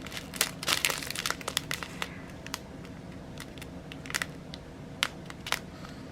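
Plastic packaging crinkling and crackling as it is handled: a dense run of sharp crackles in the first two seconds, then scattered single clicks.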